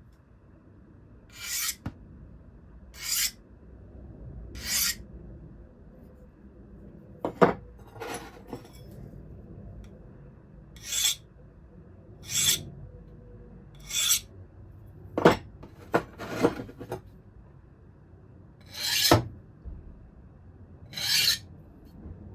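Hand file pushed across a steel knife blade in separate rasping strokes, about a dozen of them, one every second and a half to two seconds. A few sharper clicks fall between the strokes.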